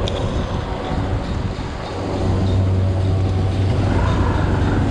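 Outdoor road traffic: a vehicle engine's steady low drone comes in about two seconds in and runs on, over a rushing noise with wind on the microphone.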